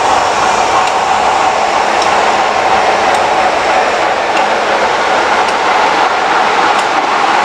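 Class 45 'Peak' diesel-electric locomotive D123 running slowly into a platform, its Sulzer twin-bank diesel engine giving a steady, loud drone with a held high note.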